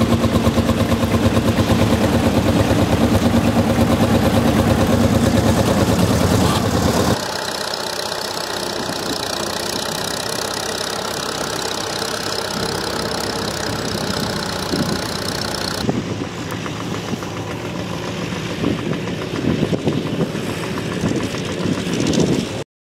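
Vintage grey Ferguson tractor engine running steadily while pulling a plough. About seven seconds in, it gives way abruptly to a quieter, steady field noise, which changes again later and cuts off near the end.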